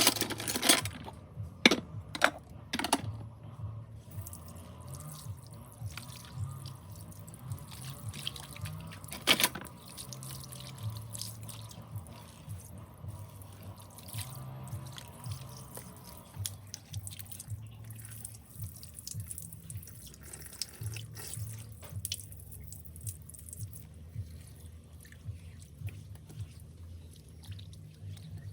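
Tap water running into a kitchen sink during hand dishwashing. Plates and dishes knock and clink a few times in the first three seconds and once more about nine seconds in.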